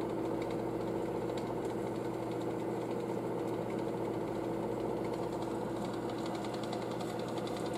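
June countertop oven's convection fan running while it air fries: a steady motor hum with several fixed tones.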